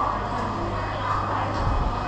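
Market ambience: a steady low hum under faint, indistinct voices, with a slightly louder low rumble near the end.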